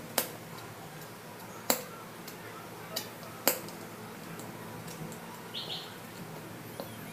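Sharp light clicks and clinks of hands pressing and fitting a lid onto a small round watch box: four distinct clicks over the first few seconds, then a short faint high chirp a little later.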